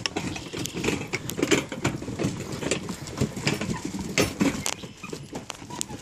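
Footsteps of several people walking on a boardwalk's decking, irregular knocks a couple of times a second, with rustling.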